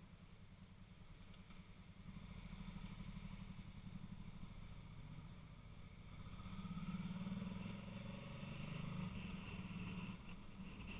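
Motorcycle engine running at low road speed, heard muffled through a waterproof camera case on the rider's helmet. It gets louder about two seconds in and again about two-thirds of the way through as the bike pulls away.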